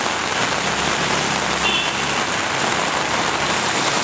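Heavy monsoon rain pouring steadily onto a city street and pavement, a dense, even hiss of rainfall.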